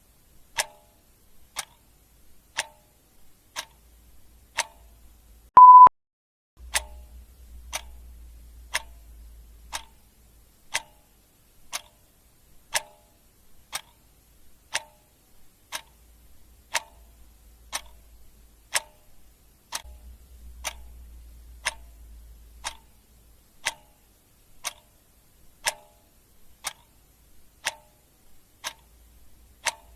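Clock ticking steadily, one tick a second. A single short, high beep sounds about six seconds in, louder than the ticks.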